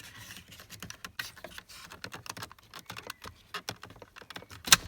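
Plastic dashboard trim pieces and clips on a BMW E46 being handled and worked loose by hand: a run of small irregular clicks and rattles, then one sharp loud snap near the end as a clip pops free.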